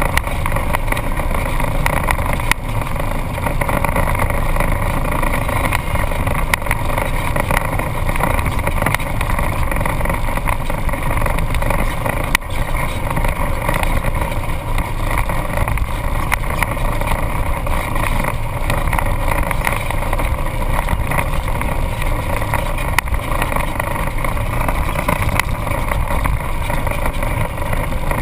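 Off-road vehicle's engine running in a steady drone as it drives along a sandy trail, heard through a camera mounted on its hood, with a few sharp knocks from bumps or the mount.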